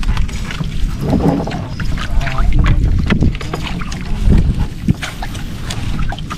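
Wet nylon gill net being hauled by hand over the side of a small wooden outrigger boat, with water splashing and irregular clicks and knocks of the net and its catch against the hull. Wind rumbles on the microphone throughout.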